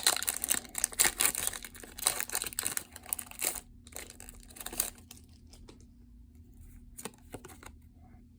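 Crinkling and rustling of a foil booster-pack wrapper and plastic card packaging being handled, dense for about the first five seconds, then only a few scattered light crackles.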